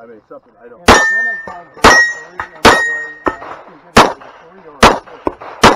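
Six semi-automatic pistol shots at a rate of about one a second. Each of the first three is followed by the ringing clang of a hit steel target.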